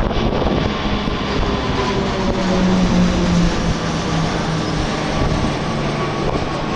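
Three Embraer EMB-314 Super Tucano turboprops passing overhead in formation: a steady propeller drone with a humming tone that slowly falls in pitch as they go over.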